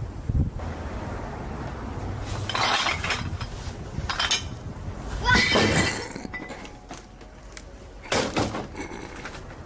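Three crashes of things breaking, with clinking, about two, five and eight seconds in; the middle crash is the loudest.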